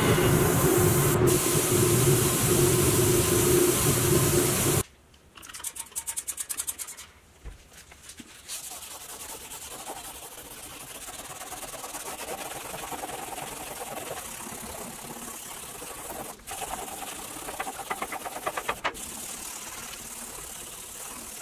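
A powder-coating gun sprays primer onto pressed-steel toy-truck parts with a loud steady hiss and hum, which cuts off about five seconds in. After a few seconds of fainter ticking, gloved hands rub back and forth over a primed pressed-steel chassis plate lying on a wooden bench, a quieter scrubbing sound that rises and falls with the strokes.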